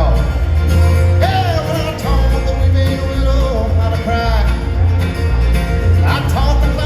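Bluegrass band playing live, with a steady pulsing bass beat under a bending lead melody line.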